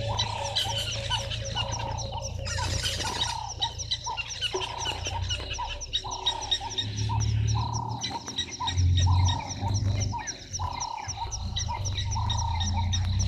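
A frog chorus at a waterhole: croaking calls repeat about twice a second over a fast, high-pitched ticking. A low rumble comes and goes from about halfway through.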